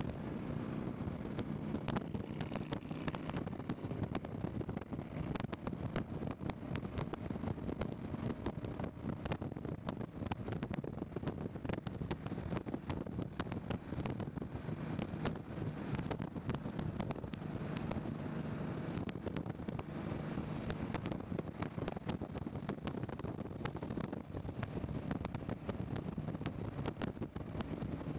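Cruiser motorcycle running steadily at motorway speed, its engine drone mixed with wind buffeting the microphone.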